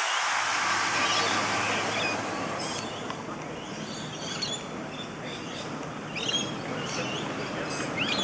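Steady hiss of steam from a live-steam model locomotive blowing off, dying away about two and a half seconds in. After that, birds chirping repeatedly over a faint outdoor background.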